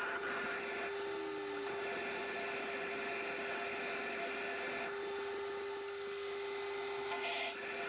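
Metal lathe running steadily, a constant motor and gear hum under an even mechanical hiss, with the higher part of the noise briefly dropping out and returning about five and seven seconds in.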